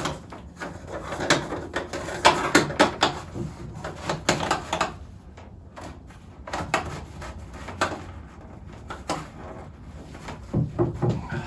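Irregular knocks and clicks as chicken feeder ports with rubber gaskets are handled and pushed into drilled holes in the feeder. The knocks come thick and fast for about five seconds, then fall to a few scattered ones.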